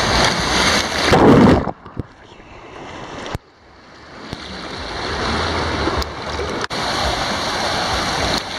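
Rushing and splashing water around an inner tube sliding down a water-park channel. A loud surge of splashing about a second in, then the sound goes suddenly muffled and quiet for a couple of seconds, as if heard under the water, before the rush of water builds back up.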